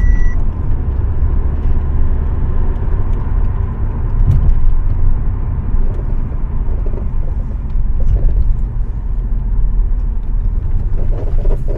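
Road and tyre rumble inside the cabin of a 2015 Audi A4 driven at about 50 km/h over a long gentle bump, with a knock about four seconds in and a squeaky creaking from the suspension. The mechanic suspects the noise comes from worn, cracked control-arm rubber bushings.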